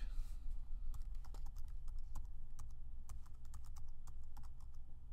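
Typing on a computer keyboard: irregular keystroke clicks as a web address is typed, over a steady low hum.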